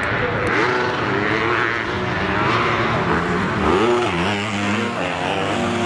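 Several motocross bikes racing on a dirt track, their engines revving, each one's pitch repeatedly rising and falling as they throttle on and off.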